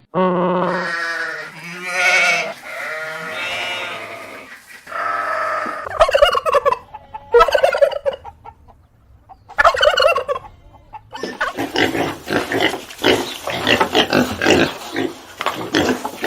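Farm animals calling: several separate drawn-out calls in the first half, then from about eleven seconds a dense run of rapid, chattering calls.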